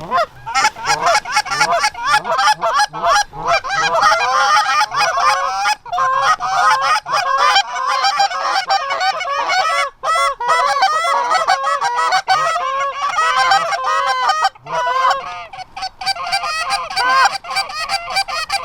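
Canada goose honks and clucks, many calls overlapping in a fast, continuous chatter, with a couple of brief lulls partway through.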